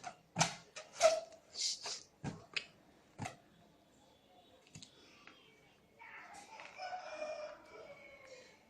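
A rapid run of short, sharp knocks or yelps over the first three seconds, then about six seconds in a drawn-out, rooster-like crowing call that falls slowly in pitch.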